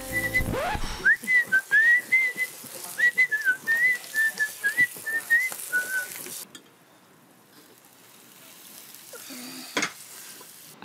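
A person whistling a tune in short, quick notes that stop about six seconds in. After that there is only quieter background, with one sharp knock near the end.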